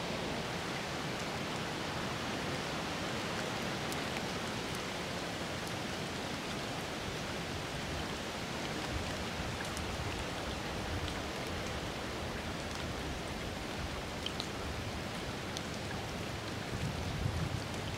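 Floodwater rushing across a flooded road and spilling into a ditch: a steady hiss of running water, with a brief low rumble near the end.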